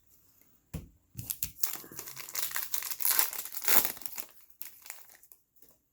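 Plastic-foil trading-card pack wrapper being torn open and crinkled, a dense crackling that swells for a few seconds and then dies away, after a short knock about a second in.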